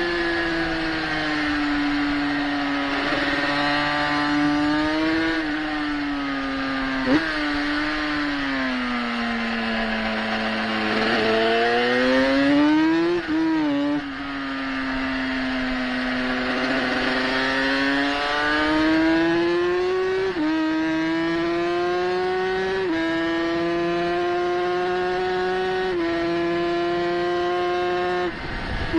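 Exhaust and engine of a 350 cc road-racing motorcycle at racing speed, heard from the onboard camera with wind noise. The revs sag gradually into a slow corner, then climb and step up and down through gear changes. There is one short sharp crack about seven seconds in.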